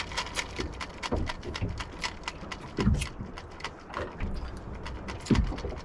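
Rapid, irregular clicking and rattling, several clicks a second, with a few low thumps between them.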